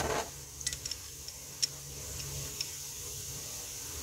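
A few light metallic clicks and ticks as a steel tie rod end and tie rod are handled and lined up to be threaded together, over a steady low hum.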